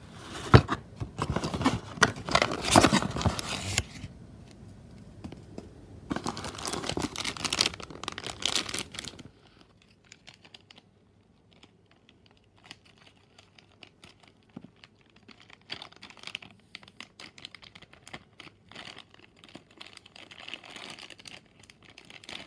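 Thin plastic packaging bags crinkling and rustling as they are pulled from a cardboard box and handled: two loud stretches of dense crackling in the first nine seconds, then softer, scattered crinkles.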